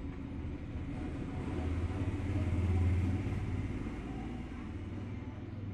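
A low rumble that swells about halfway through and then eases off.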